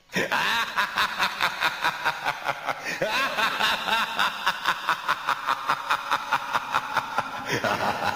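Cackling laughter starting abruptly out of silence and running on as an even string of about four laughs a second.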